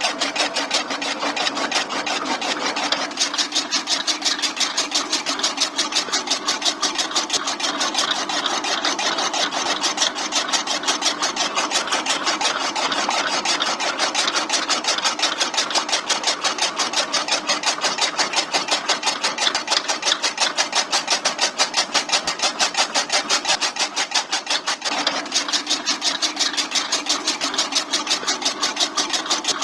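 Miniature chaff cutter driven by a small motor through a rubber-band belt, its blade wheel chopping fresh grass fed by hand into short pieces. It makes a rapid, even chopping rhythm over the running motor.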